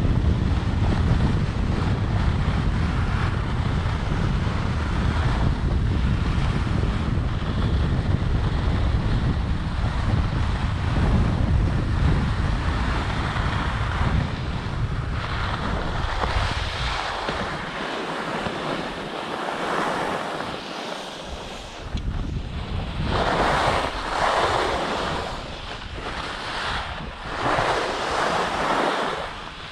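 Wind buffeting the microphone of a downhill skier's camera, a heavy rumble. Past the middle the rumble drops away and skis scrape over packed snow in a series of turns, a swelling hiss about every two seconds.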